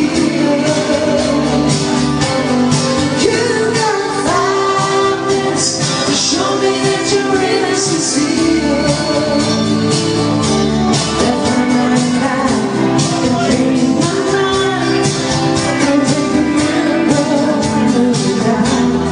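A woman singing karaoke into a microphone over a pop backing track.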